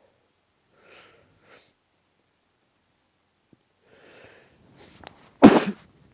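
A person's allergic sneeze: two faint breaths, then breaths drawn in that build to one loud sneeze near the end.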